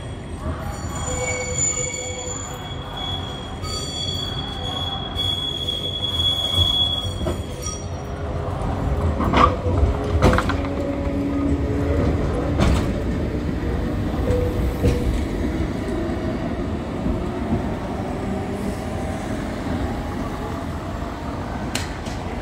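Lowa ET54 tram and trailer taking a curve, its wheels squealing on the rails with a steady high squeal for the first several seconds. It then rolls past with a rumble, with a few sharp knocks as the wheels pass over rail joints and points.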